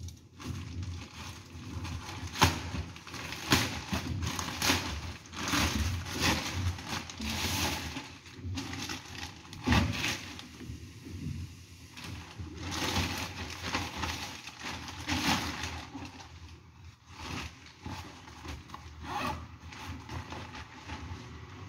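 Plastic packaging crinkling and rustling in irregular bursts as a backpack is pulled out of a poly mailer and its clear plastic bag and handled.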